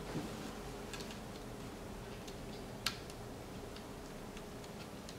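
Faint, scattered light clicks and taps of a carbon fiber dash trim piece being handled and fitted against the dashboard, with one sharper click about three seconds in, over a steady low hum.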